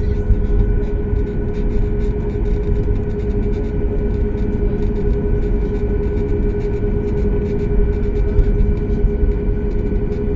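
Steady machine drone with a constant hum running through it and a low rumble beneath, unchanging throughout.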